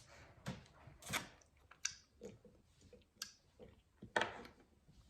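Eating sounds close to the microphone: chewing and mouth clicks, in a string of short sharp smacks about a second apart.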